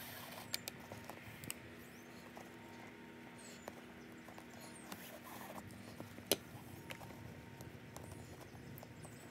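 Scattered light clicks and ticks as a shoelace is pulled and threaded through the metal eyelets and hooks of a hiking boot, with one sharper click about six seconds in.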